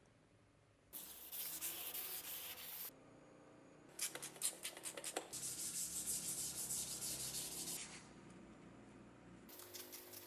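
Sandpaper (P500 wet-or-dry) rubbed by hand back and forth along the cast-steel blade of a Peugeot Frères drawknife. It comes in three spells of scratching, the middle one longest and starting with a few sharper scrapes.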